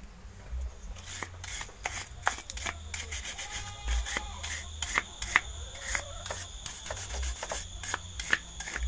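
Steel wire brush scrubbing a motorcycle disc-brake caliper piston in quick rasping strokes, starting about a second in. The piston is stiff from built-up dirt.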